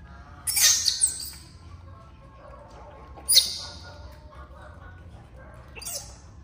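Baby monkey giving three short, shrill squeals: about half a second in, a little after three seconds, and a fainter one near the end.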